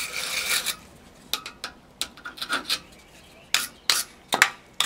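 Hand wire brush scrubbing a steel punch in short, irregular strokes, with a brief lull around the middle and a few sharp strokes near the end.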